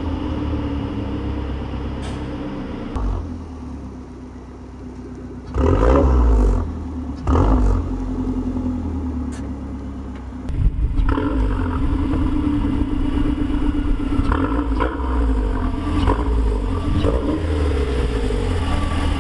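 Mazdaspeed 3's turbocharged 2.3-litre four-cylinder breathing through a catted downpipe and a non-resonated Magnaflow cat-back exhaust, idling steadily. Two short revs come about six and seven seconds in, and from about eleven seconds it runs louder and less evenly.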